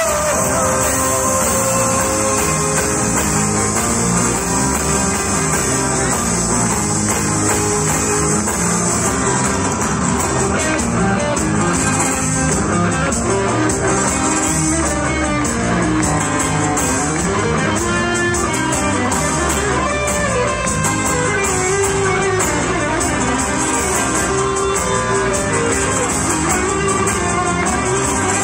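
Live rock band playing through a PA system, heard from among the audience: electric and acoustic guitars over drums, keeping up a steady full sound.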